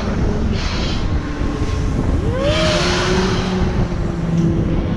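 Wind rushing and buffeting over the microphone of a Hurricane swing-arm fairground ride, with a whoosh swelling every couple of seconds as the arm swings through. A faint steady hum sits underneath, and a short rising-then-falling tone comes about two seconds in.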